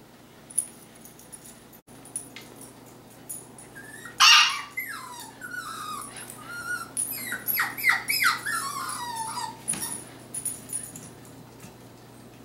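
Young Sheltie/Aussie puppy yipping and whining: a sharp yelp about four seconds in, then a run of short, falling whines and yips, with a few light clicks before it.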